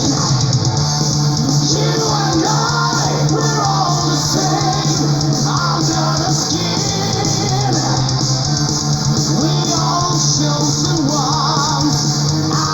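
Neoclassical melodic metal song playing at a steady loud level: electric guitar with a sung melodic line.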